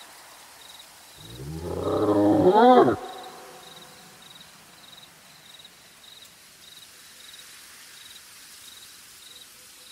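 A beast-like roar used as the sound of an unseen forest creature, swelling and rising in pitch for under two seconds, then cutting off suddenly. Faint cricket chirps repeat steadily in the background.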